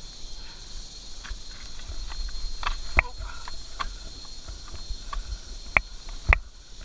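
Footsteps on loose stones and scattered clicks and knocks around a dirt bike lying on its side, its engine not running. The three loudest are sharp knocks, one about three seconds in and two close together near the end.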